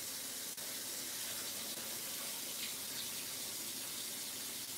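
Kitchen tap running steadily into the sink as rice is rinsed under it.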